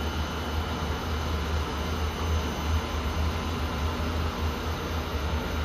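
Steady industrial machinery hum from melting-furnace equipment on test: a strong low drone under an even hiss, with a few faint high steady whines.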